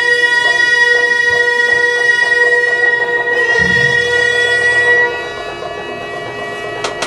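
Reconstructed Tang-dynasty court banquet music. A wind instrument holds one long steady note that fades about five seconds in. A low note enters underneath about halfway through, and two sharp struck clicks come near the end.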